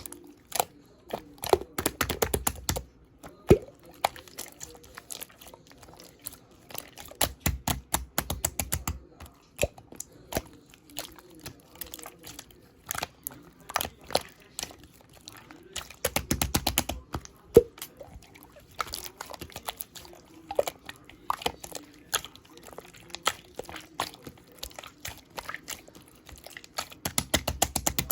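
Slime being squeezed, stretched and pressed by hand, making rapid sticky clicks and pops. About every six to nine seconds the clicking thickens into a louder cluster with a low, dull thump under it.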